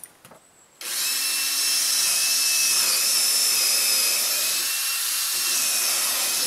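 Power drill running steadily with a high whine, starting about a second in and holding for about five seconds, drilling a pilot hole into the wooden frame.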